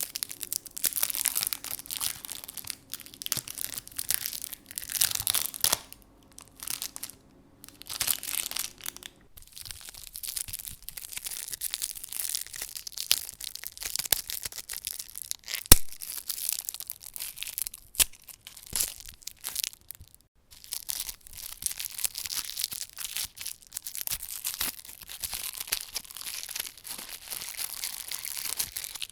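Rustling and crinkling of packaging: an instant coffee sachet is drawn out of its cardboard box, then a sweet's paper wrapper is unwrapped twice, with irregular crinkles and a few sharp crackles.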